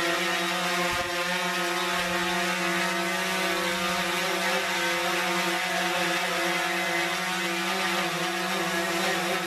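DJI Phantom 4 Pro quadcopter drone flying, its propellers giving a steady whirring buzz at an unchanging pitch.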